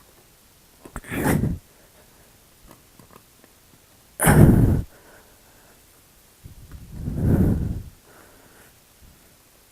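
Three hard, noisy exhales or grunts of effort, the breath blowing on the microphone, about a second in, about four seconds in and about seven seconds in. They come while he is working the carburetor free of its rubber intake boots.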